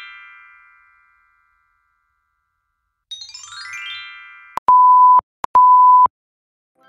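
End-screen sound effects. A quick falling run of chime notes rings and fades out, and the same chime comes again about three seconds in. Then two clicks come, each followed by a steady high beep about half a second long; the beeps are the loudest part.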